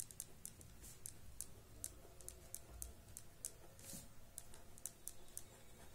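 Pen writing on paper: faint, quick scratches and ticks of the strokes, several a second at an uneven pace.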